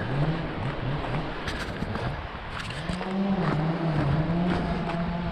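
A vehicle engine running, its pitch dipping and rising unevenly as the revs change, with scattered sharp clicks and knocks.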